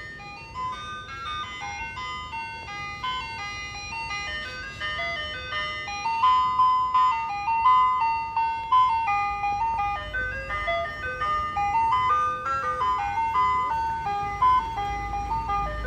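Ice cream truck playing its music-box jingle melody over a loudspeaker, growing louder as the truck approaches. The truck's engine rumbles low underneath as it pulls up near the end.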